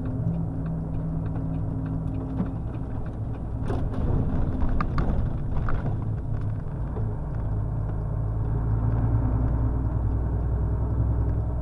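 Truck's diesel engine running steadily while driving, heard as a low rumble from inside the cab, with a few short clicks around the middle.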